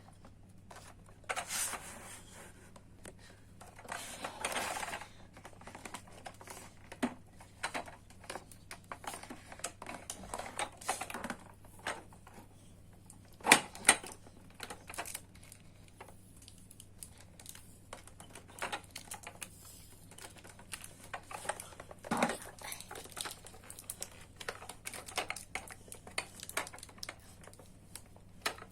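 Plastic and cardboard toy packaging being handled while sticky tape is picked at and pulled off: irregular clicks, taps and crinkles, with a few short scraping tears and a couple of louder knocks.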